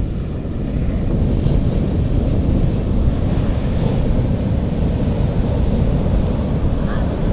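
Sea waves washing onto a beach, under steady heavy wind noise on the microphone.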